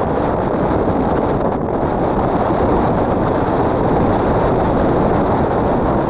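Ocean surf: a steady, even rushing noise with no lulls or separate wave crashes.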